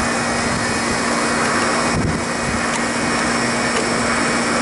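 Refrigeration condensing unit running: a steady hum over an even rush of noise, with a faint click about two seconds in.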